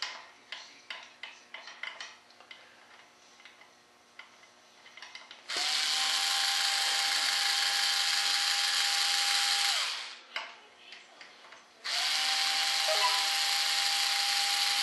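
Power drill backing screws out of a rudder mold in two steady runs of about four seconds each, its motor whining at a constant pitch. Before the first run there are small clicks and taps of handling.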